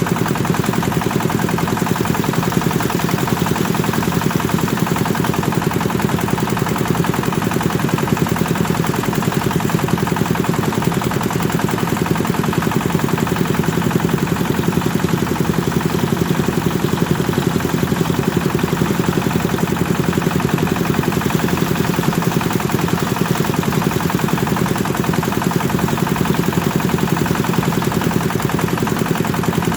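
Kubota engine driving a rice threshing machine, running steadily at a constant speed with a rapid, even firing beat.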